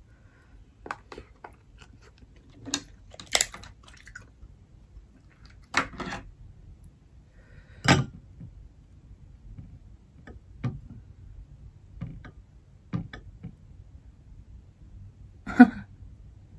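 Close-miked eating sounds: lobster meat chewed, with scattered short smacks, crunches and clinks of dishes as it is handled and dipped in sauce, the loudest about a second before the end.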